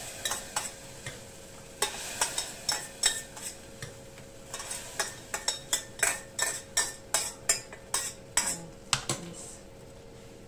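A spoon stirring in a cooking pot, clinking against its sides in a quick, fairly regular run of clicks that stops about a second before the end.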